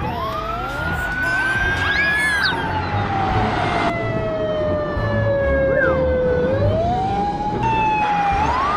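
Police siren wailing, its pitch rising, then falling slowly over several seconds and rising again near the end, over background music with a steady beat.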